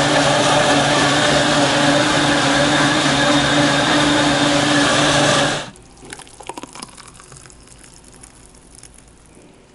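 Aicook countertop blender running steadily at high speed on a thick shake, switched off suddenly about five and a half seconds in. After it stops, the thick drink is poured from the jar into a glass, with a few light clinks.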